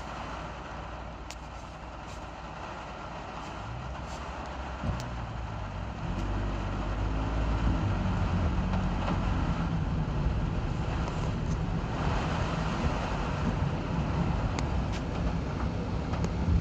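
Car driving in a typhoon: its engine speeds up with a rising pitch from about four seconds in, then runs steadily, over a constant hiss of road and storm noise, with a few sharp ticks.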